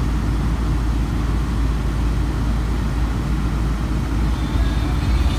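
A car's HVAC blower running on max AC: a steady rush of air from the vents over a low rumble.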